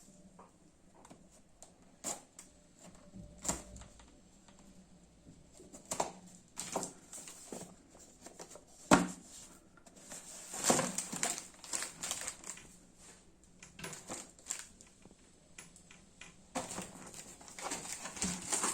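Cardboard product box being opened and its packaging handled: irregular taps, clicks and rustles, with the sharpest click about nine seconds in.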